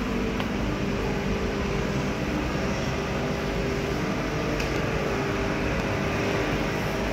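Steady hum and hiss of a large store's indoor background noise, with a faint steady tone running through it.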